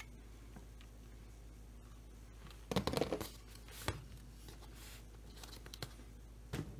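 Stripped Stihl 025 chainsaw body and chain-brake handle being handled and shifted on a workbench: a short rattling scrape about three seconds in, a sharp click just after, then a few light ticks and a brief scuff near the end.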